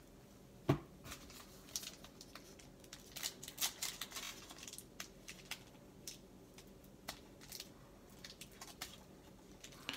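A thump about a second in, then the crinkle and tear of a foil trading-card pack wrapper (2018 Panini Prestige football) being peeled open by hand, in a run of short crackles that thin out later.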